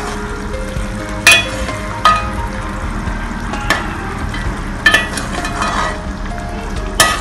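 A metal ladle stirring egg gravy in a steel pot, clinking sharply against the pot about six times, over a steady hiss from the simmering gravy.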